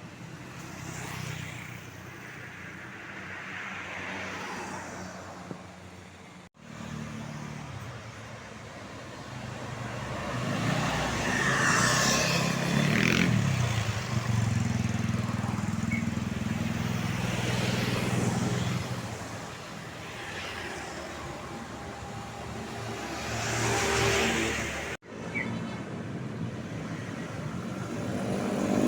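Road vehicles passing: engine and tyre noise swells and fades, with a heavy vehicle's engine rumbling loudest for several seconds in the middle. The sound breaks off sharply twice.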